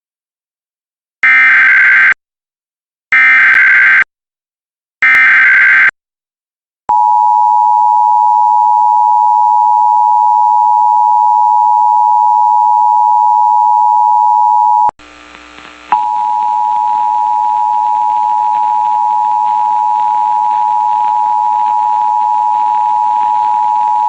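Emergency Alert System broadcast tones from a cable TV box. First come three one-second bursts of screeching SAME header data. Then the two-tone EAS attention signal holds steady for about eight seconds, breaks off briefly, and comes back with a low hum and noise underneath it.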